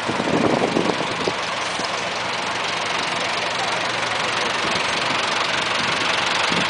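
Massey Ferguson tractor's diesel engine running steadily at low speed as the tractor drives slowly closer.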